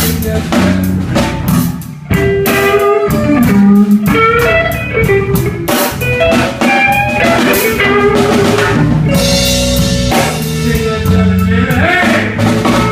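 Live blues band playing an instrumental passage: a lead guitar with bending notes over drum kit and bass.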